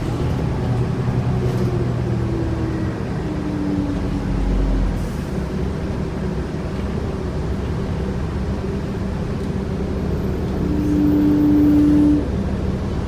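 Interior ride noise of a New Flyer D40LF diesel city bus, with a steady engine drone. Short whining tones step up in pitch during the first few seconds. A louder steady whine is held for about a second and a half near the end, coming from a transmission described as bad.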